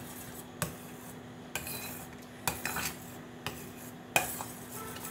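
A spoon stirring a thick, cooked milk-and-arrowroot ice-cream base in a pan, scraping and knocking against the pan about once a second, over a faint steady hum.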